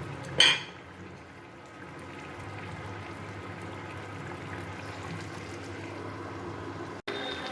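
Thin fish curry gravy simmering and bubbling steadily in a pan with fried parshe fish in it. A sharp knock sounds about half a second in.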